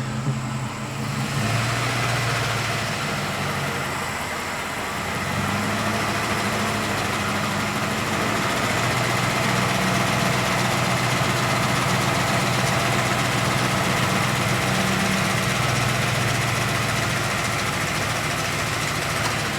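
Ford 5.4L Triton three-valve V8 held at about 800 RPM with the throttle pedal, with the engine rattle that the owner takes for worn VCT cam phasers. The engine comes up a little about a second in, eases briefly around four seconds in, then holds steady.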